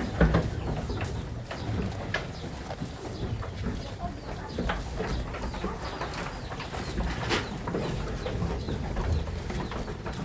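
Birds calling in short scattered chirps, with clicks and a steady low rumble underneath.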